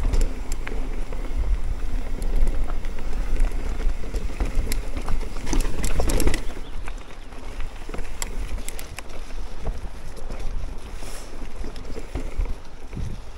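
Mountain bike rolling down a rocky trail: wind rumbling on the camera microphone, tyres running over stones, and scattered clicks and rattles from the bike over the bumps. The wind rumble is heaviest in the first half and eases about six seconds in.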